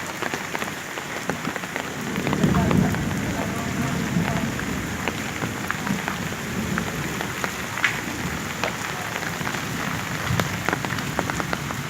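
Heavy rain falling steadily, with many sharp, close drop hits. A low rumble swells about two seconds in and then eases.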